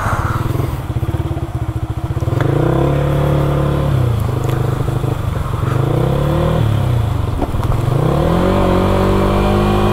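Yamaha R15 V3's 155 cc single-cylinder four-stroke engine pulling away at low revs, then accelerating through the gears. The engine note climbs and drops back at each upshift, twice, then climbs again.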